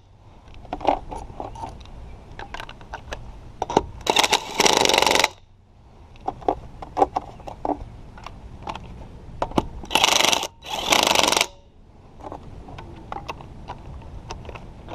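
Ryobi cordless impact wrench hammering on wheel lug nuts in short bursts: a pair about four seconds in and another pair about ten seconds in. Between the bursts come light metallic clicks and knocks from sockets and nuts being handled.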